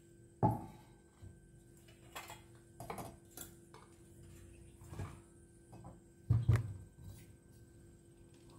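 A few scattered knocks and thuds of objects being handled and set down, the loudest about half a second in and a pair about six and a half seconds in.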